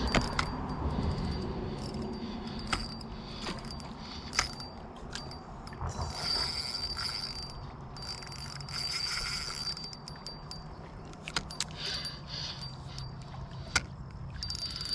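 Spinning reel working while a hooked catfish fights: ratcheting clicks of the reel, with two stretches of buzzing as the drag gives line. A faint steady high tone runs underneath.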